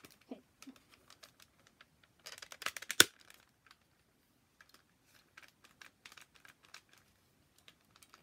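Plastic clicks and rattles of a toy foam blaster being handled, with a quick run of clicks about two to three seconds in that ends in one loud, sharp snap.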